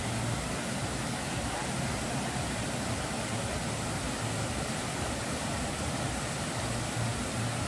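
Waterfall rushing, a steady even wash of falling water.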